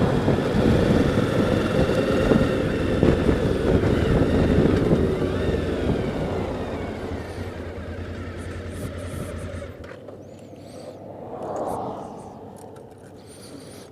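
Motorcycle on the move: engine, wind and road noise, loud at first, then dying away and dropping off sharply about ten seconds in.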